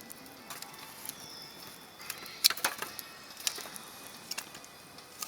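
Wood campfire crackling: irregular sharp pops and snaps of burning wood, the loudest about two and a half seconds in.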